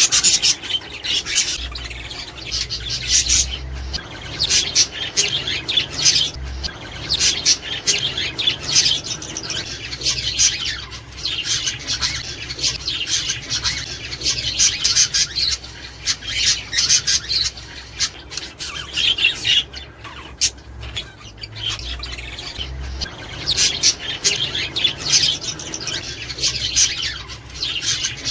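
Budgerigars chattering without a break: fast warbling, chirps and squawks, with louder flurries every second or two.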